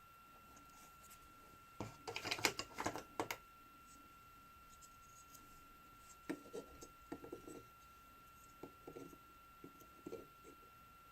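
Faint scraping and light clicking of small tools and parts being handled during fine-pitch connector soldering. A cluster of scrapes comes about two seconds in, then scattered clicks follow, over a steady faint high-pitched tone.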